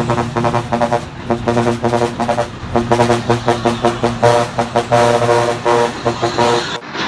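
Truck's musical air horn sounding a fast run of short toots that step between pitches, over a steady low hum. It cuts off abruptly shortly before the end.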